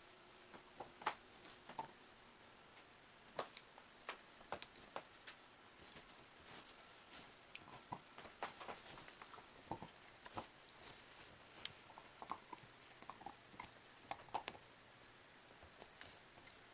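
Siberian husky nosing and pawing at a fleece blanket and couch cushions, the digging motion of a dog trying to bury a bone: faint, irregular scratches, fabric rustles and soft clicks.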